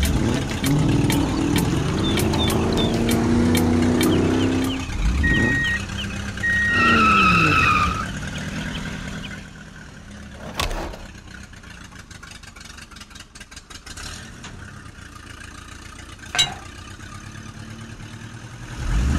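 A vehicle engine sound effect for a toy wheel loader, its pitch rising and falling, with two short beeps and a wobbling tone near the middle. It then drops to a quieter stretch of small clicks and two sharp knocks while a tow chain is fitted to the toy vehicles.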